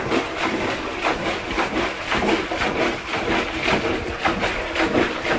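A pet eating noisily from a plastic bowl: a rapid, irregular run of crunching and clattering chews.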